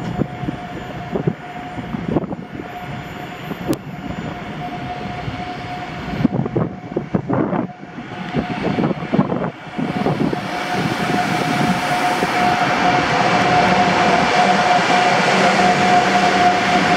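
An electric express train, a PKP Intercity EU44 Husarz locomotive hauling a long rake of coaches, approaching and passing through the station at speed: from about ten seconds in its running noise builds to a loud rush as the locomotive goes by near the end. A steady hum sounds throughout and grows louder as the train arrives.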